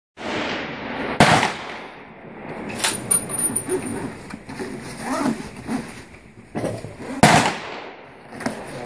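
Two rifle shots about six seconds apart, each a sharp report with a short echo, with a lighter sharp click between them.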